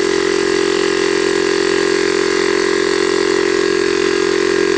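Small direct-drive piston air compressor driven by a 12-volt motor, running steadily under load with an even hum while it pumps up its air tank.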